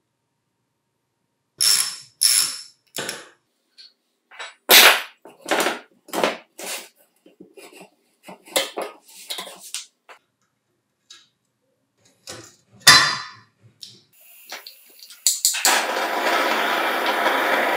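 Metal parts and hand tools clinking and knocking in a dozen or so separate strikes, as a rusty vintage ice shaver is worked on. About fifteen seconds in, a steady, loud hiss starts and keeps going.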